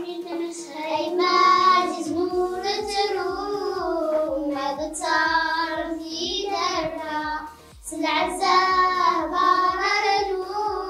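Two young girls singing a song together, a sustained melody with a brief breath pause partway through. A steady low beat of backing music runs underneath from about two seconds in.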